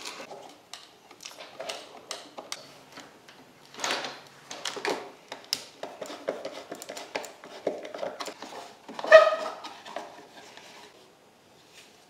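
Hand screwdriver backing screws out of a 1978–81 Camaro plastic tail-light housing: scattered clicks, scrapes and small rattles of parts. About nine seconds in comes one louder clink with a short ring.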